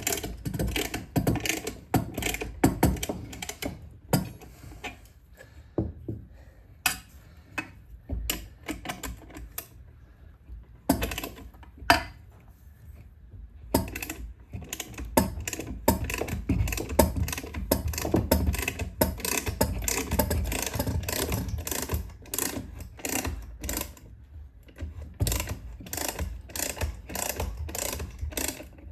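Ratchet clicking in quick runs with short pauses as the engine case splitter's forcing screw is wound in, pressing the KTM 450 EXC crankshaft out of the crankcase half. A few louder single metal knocks stand out among the clicks.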